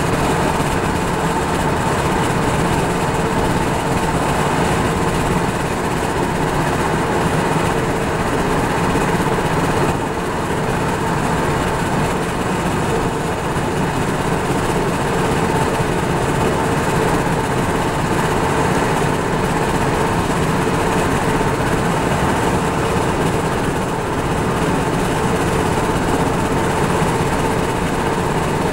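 Car running, heard from inside the cabin: a steady, unbroken hum.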